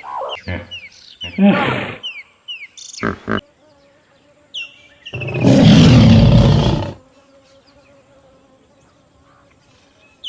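A big cat roars once, for about two seconds, in the middle; it is the loudest sound. Before it come short, repeated falling bird chirps and a few brief animal calls.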